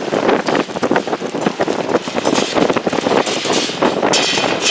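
Strong gusty wind buffeting the microphone, a loud, uneven rushing noise that rises and falls from gust to gust.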